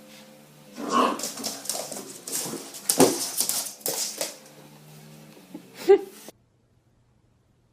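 A dog whimpering and giving short yelps in several bursts, over a steady low hum. The sound cuts off abruptly a little after six seconds in.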